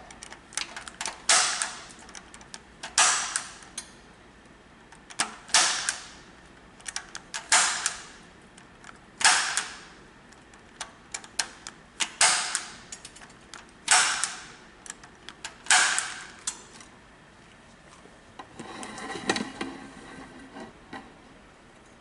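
Impact punch-down tool snapping as it seats and trims the eight wires of a Cat 5e cable into a patch panel's terminals. There are eight sharp snaps, about one every two seconds, with lighter clicks between. Softer scratchy handling noise follows near the end.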